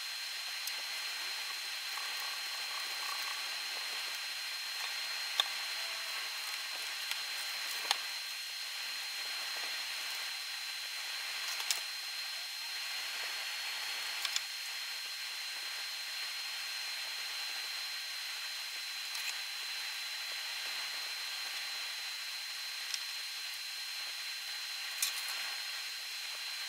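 Steady hiss with a faint, steady high whine. A handful of sharp small clicks and taps are scattered through it as a graphics card, its heatsink and small tools are handled on a desk.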